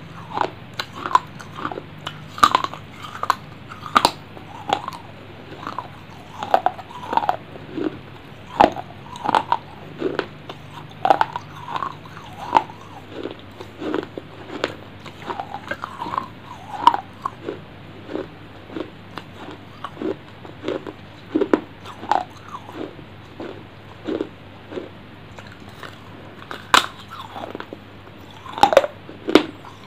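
Close-miked biting and chewing of hard, dry clay pieces: irregular crisp crunches, roughly one or two a second.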